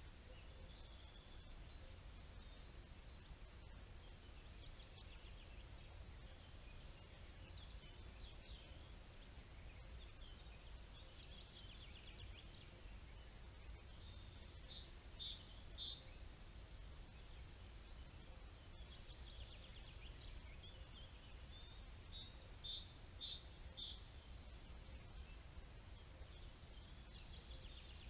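Wild songbirds singing faintly: one bird repeats a short phrase of four or five high notes three times, with softer twittering from others in between. A low steady rumble runs underneath.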